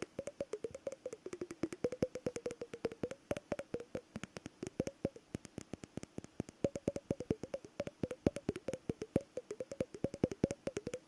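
Fast tapping on glass and plastic objects. Each tap gives a short pitched ring, and the note shifts up and down as different spots are struck.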